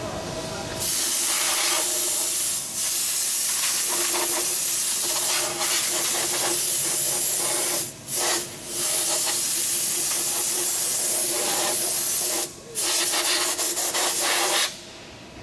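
Loud hiss of compressed air blowing coolant and chips off a freshly drilled workpiece on a multi-spindle drilling machine. It starts about a second in, breaks off briefly a few times, and cuts off shortly before the end.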